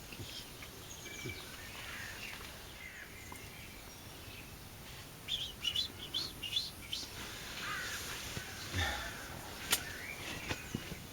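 Small songbird chirps and calls, with a quick run of short high notes about halfway through and a single sharp click near the end.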